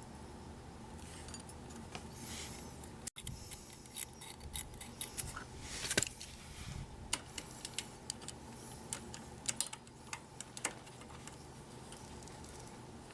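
Irregular clicks and light metallic clinks and scrapes of hand tools on metal, from work adjusting the valve tappets of a Honda Super Cub engine; the engine is not running.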